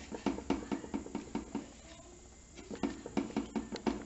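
Leaf-wrapped tamales being packed by hand into an aluminium pot: quick rustling and crackling of the wrapping leaves with light knocks, in two bunches with a short lull about halfway.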